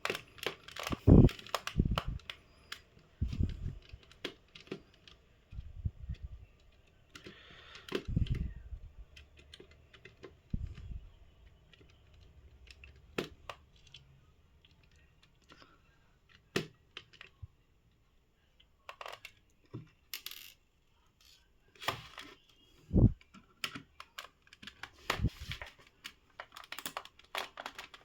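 Irregular clicks, taps and a few heavier knocks of a plastic electric mosquito racket being handled and taken apart by hand, with short quiet gaps between them.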